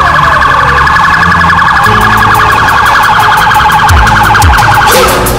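Police siren in a loud, fast-warbling yelp that cuts off near the end, over a low engine rumble.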